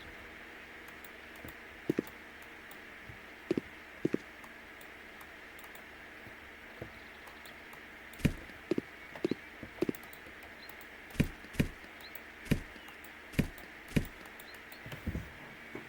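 Irregular knocks and taps, a few at first and more frequent in the second half, over a steady background hum.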